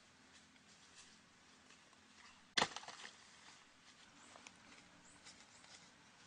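Light crunching and rustling in dry leaf litter, with one sharp, loud thump about two and a half seconds in, followed by a few smaller knocks.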